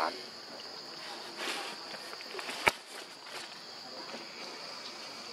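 Steady high drone of forest insects, with rustling steps through leafy undergrowth and one sharp click about halfway through.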